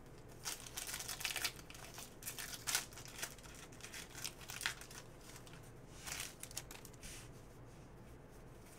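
Foil wrapper of a 2018 Upper Deck Goodwin Champions card pack being torn open and crinkled by hand, in a run of short rips and crackles during the first three seconds and a few more after that.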